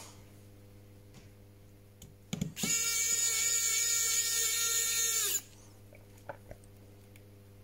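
Electric precision screwdriver spinning for about three seconds, a steady high whine that starts and stops abruptly, driving out a screw from the smartphone's midframe. A couple of light knocks come just before it.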